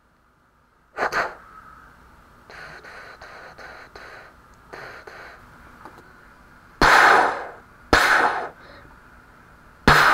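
Gunfire sound effects for a LEGO minifigure's pistol: a few softer bursts, then three loud, sharp shots, each dying away over about half a second, the last near the end.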